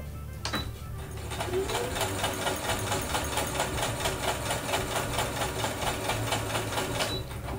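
Compact electric sewing machine stitching gauze fabric: a fast, even needle rhythm that starts about a second in and stops just before the end, with a click as it starts and stops.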